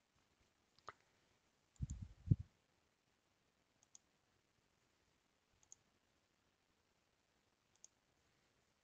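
Computer mouse clicking, about five single clicks spaced a second or two apart, with a louder low, muffled thump about two seconds in.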